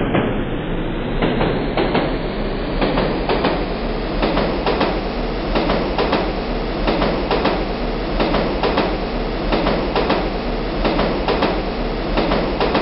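Metro train running on the rails, its wheels knocking over rail joints in a steady rhythm of about two knocks a second over a low rumble. It sounds muffled at first and brightens over the first few seconds.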